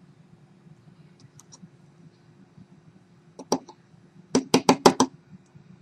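Small hard clicks and taps from a tool working on a phone's circuit board at its USB port: one click about three and a half seconds in, then a quick run of about six sharp taps in under a second, over a faint steady hum.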